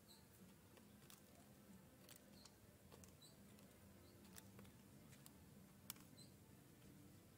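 An Inca dove pecking seed in a plastic tub: faint, sharp, irregular taps of its beak on seed and plastic, over near silence. A few faint short high chirps come in now and then.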